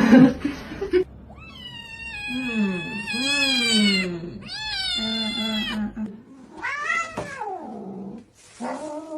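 A cat yowling: three or four long drawn-out meows in a row, each rising and falling in pitch.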